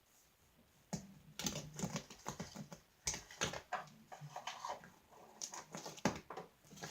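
Homemade fluffy slime being squeezed and poked by hand, giving irregular small clicks and pops as air bubbles in it burst.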